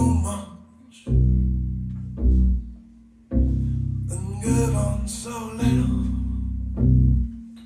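Upright double bass plucked in a slow blues line: single deep notes struck about once a second, each ringing and fading before the next.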